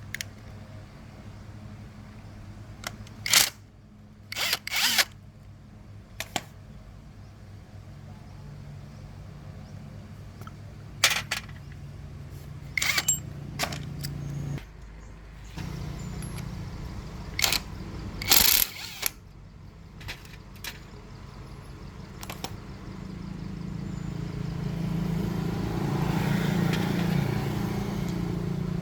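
Metal tools and parts clinking and knocking on a workbench, a dozen or so sharp strikes, some in quick pairs, over a steady low hum. A rising mechanical noise swells in over the last few seconds.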